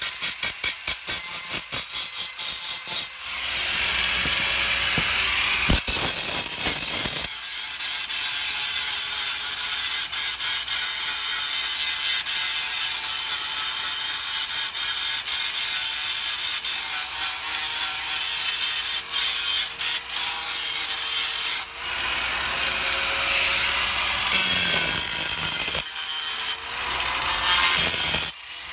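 Corded angle grinder cutting V-grooves into a granite stone: a steady high grinding with a faint motor whine under it. For the first few seconds, and again near the end, the sound comes in rapid short pulses, about five a second, as the disc is worked in and out of the cut.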